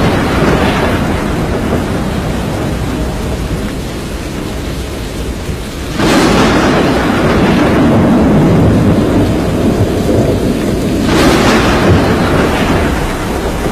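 Thunderstorm: steady heavy rain with rolling thunder. A sudden loud crack about six seconds in rumbles on for several seconds, and another follows near the end.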